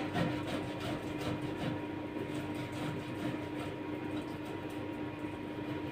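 Cold boiled potato being grated on a handheld grater over a bowl: repeated rasping strokes, about three a second.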